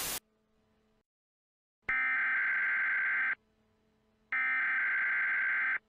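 A split-second burst of static, then two emergency-alert header data bursts: harsh, buzzy digital screeches about a second and a half long each, about a second apart. These are the SAME header tones that open an emergency alert broadcast.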